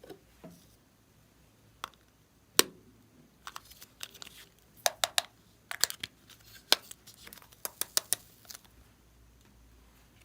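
Hands working slime and plastic piping bags: a run of sharp, irregular clicks and crackles lasting about six seconds, then stopping.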